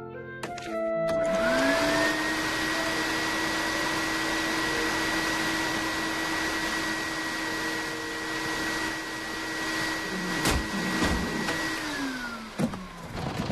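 A small electric motor spins up about a second in, runs with a steady whine and hiss, then winds down in pitch near the end, with a couple of sharp knocks shortly before it stops.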